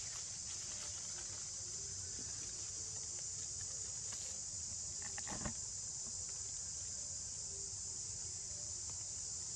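Steady high-pitched chorus of insects, with a short crackle about five seconds in.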